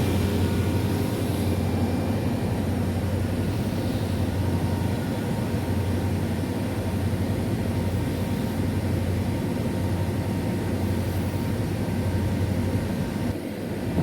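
Walk-in freezer condensing unit running: its compressor and condenser fan give a steady low hum under an even airy rush. The sound drops off sharply about a second before the end.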